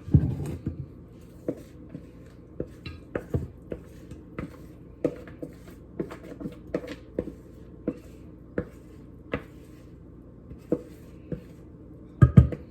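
A utensil scraping and knocking against a mixing bowl as thick banana bread batter is transferred into a loaf pan: a thump at the start, then scattered light knocks and scrapes, with a quick cluster of louder knocks near the end.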